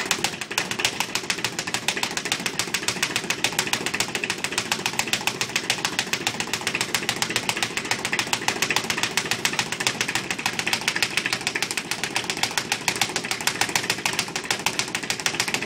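Speed bag being punched without a break, knocking against its wall-mounted rebound platform in a fast, even rattle.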